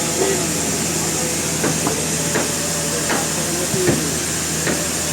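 Sawmill machinery running steadily with a low hum and a high hiss, with sharp knocks and clatters at irregular intervals, roughly one every half second to second.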